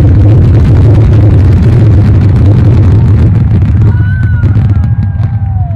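Loud, dense barrage of aerial fireworks: continuous booming with rapid crackling, thinning out about three and a half seconds in, when a few high whistles come through.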